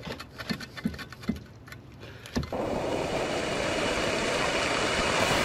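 A few light clicks and taps of plastic as the filter fitting is pushed into the bottom of a first-flush rain diverter. About halfway through, these give way to steady rain falling on banana leaves.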